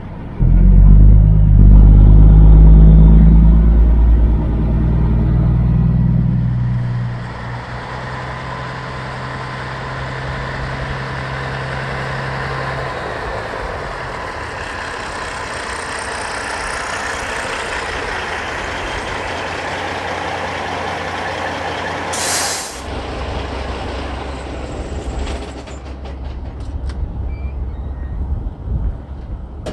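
Kenworth W900 semi truck: its diesel engine runs loud for the first several seconds. A long hiss then builds, ending in a short, sharp burst of air from the air brakes about three-quarters of the way in, as the brakes are set. After that the engine idles low, with a few clicks near the end.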